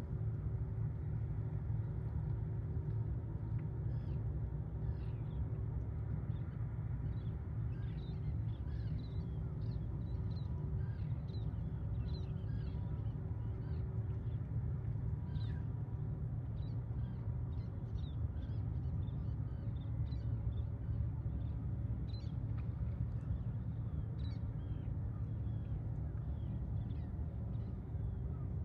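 Birds calling in many short, high notes over a steady low rumble.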